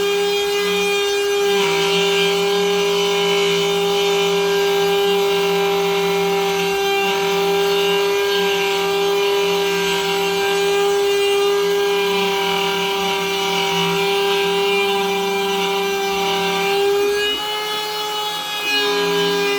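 Spindle of a homemade CNC router running with a steady high whine while its bit mills OSB board, with a rasping cutting noise over it. Near the end the whine wavers and shifts in pitch for a moment.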